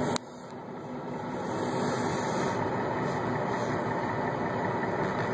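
Steady running noise of a rail movement shoving a tank car, engine and rolling noise blended into an even rumble. There is a short click and a sudden drop in level just after the start, and then the noise builds back up and holds.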